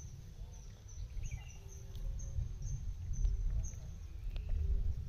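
Outdoor lakeside ambience: a short, high chirping call repeated about three times a second over a steady low rumble.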